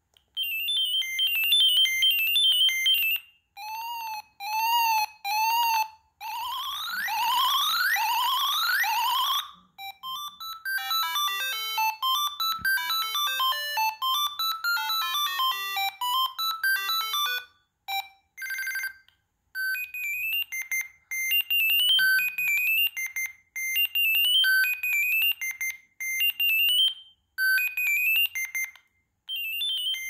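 Siemens C72 mobile phone playing a string of short electronic ringtone melodies through its small built-in speaker, one after another, with brief gaps as each new tone is selected.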